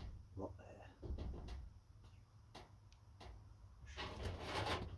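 Faint scattered knocks and clicks, with a louder stretch of rustling about four seconds in.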